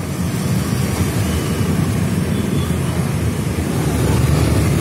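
Low, steady rumble of motorbike traffic mixed with wind on the microphone, heard while moving along a busy street.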